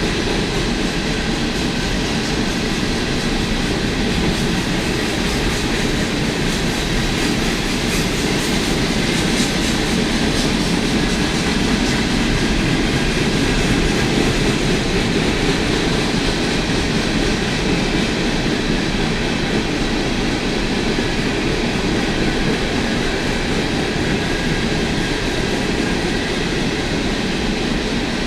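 CSX freight train rolling past, its cars' steel wheels running steadily over the rails.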